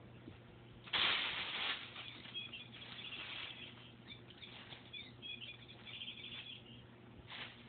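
A cat toy giving out a run of high, repeated chirps while a dog mouths and wrestles it, with a burst of rustling about a second in.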